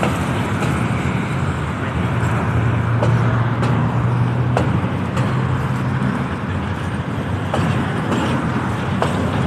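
Alsthom diesel-electric locomotive running light, without wagons: a steady engine drone that swells for a few seconds in the middle, mixed with road traffic noise.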